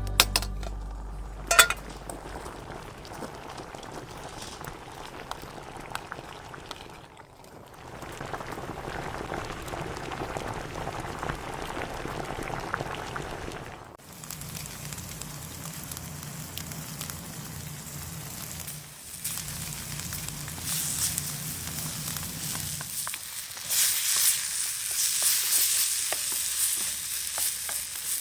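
Food frying in a pan with a steady sizzle, in several edited stretches; the sizzle gets louder and brighter over the last few seconds.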